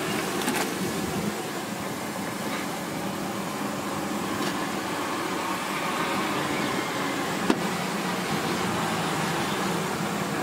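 Puris deep-frying in a kadai of hot oil, a steady sizzle with street traffic noise behind it. A single sharp knock sounds about seven and a half seconds in.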